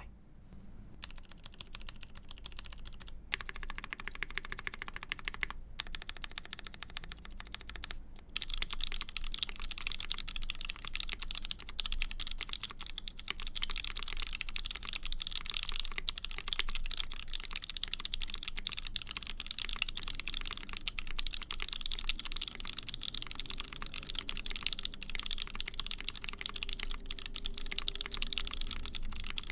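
Typing on a Keycult No.1/65 mechanical keyboard with a polycarbonate half plate, GMK keycaps and Frankenswitches: vintage Cherry black bottom housings with H1 stems and tops, lubed with Krytox 205g0. Rapid keystrokes with a few short breaks in the first eight seconds, then continuous typing.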